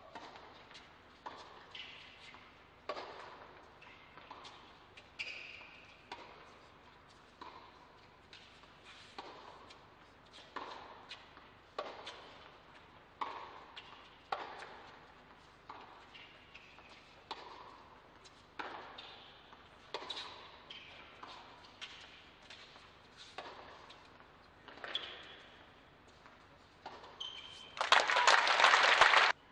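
A long tennis rally on an indoor hard court: racket strikes on the ball about once a second, alternating louder and fainter, with a few short squeaks of shoes on the court. Near the end there is a loud burst of crowd applause that cuts off abruptly.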